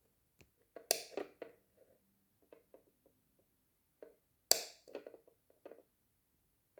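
Two sharp clicks, about a second in and again past the middle, each followed by a short run of lighter knocks and taps.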